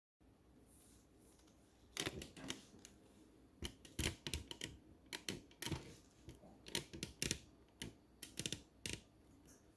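Typing on a computer keyboard: irregular clusters of sharp keystroke clicks starting about two seconds in, over faint room hiss.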